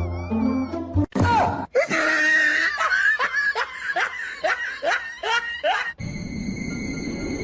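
A short stretch of music, then a person laughing in a run of short bursts, about two a second. Near the end this gives way to steady high tones over a hiss.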